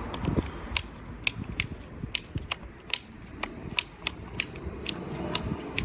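A run of sharp little clicks, unevenly spaced at about two or three a second, from the opened plastic-and-metal handlebar switchgear being worked by hand while it is cleaned of corrosion.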